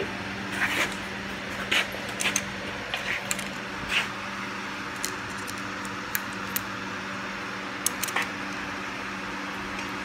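Scattered light metallic clicks and taps of hand tools and a feeler gauge on the rocker arms of a three-cylinder Kubota diesel as its valve clearances are set. A steady background hum runs underneath.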